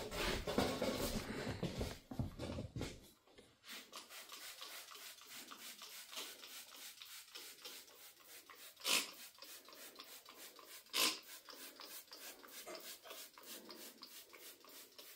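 Rubbing and handling of a cloth-covered truck bench seat for the first few seconds, then an aerosol can of foaming stain cleaner spraying onto the fabric upholstery. There is a faint, fairly steady hiss and two short, louder bursts about two seconds apart in the second half.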